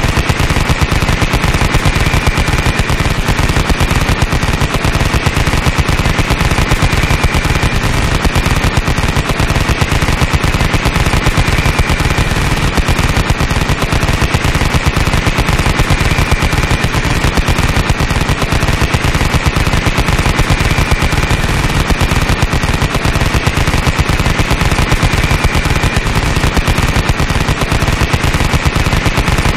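Machine gun firing in one sustained automatic burst, a rapid, unbroken stream of shots at an even loudness.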